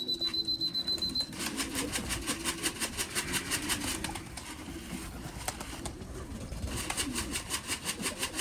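Pigeons cooing, with fast, evenly spaced rhythmic pulses that stop about four seconds in and return briefly near seven seconds. A single high, steady beep sounds for about a second at the start.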